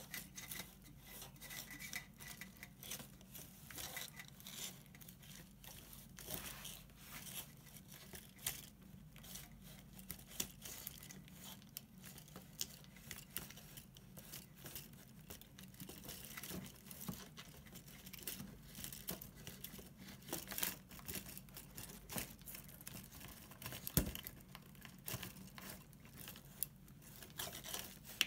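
Irregular rustling and crinkling of handmade dolls being moved by hand, among them a robot puppet built of foil and tin cans, with scattered small clicks and one sharper knock late on, over a faint steady hum.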